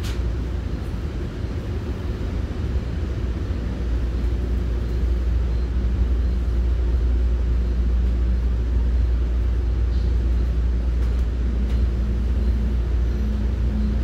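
Commuter train running, heard from inside the passenger coach as a steady low rumble that grows a little louder about five seconds in.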